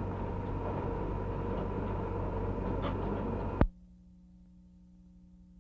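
Steady hiss and hum of an old 1950s film soundtrack with no speech. About three and a half seconds in, a click, and the noise drops away to a faint low hum.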